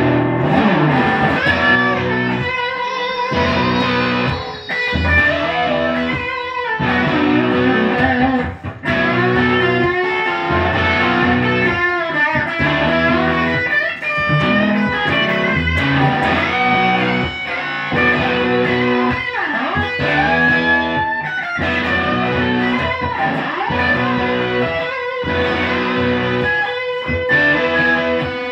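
Two electric guitars played together through amplifiers: chords broken by short stops, with lead lines and bent notes over them.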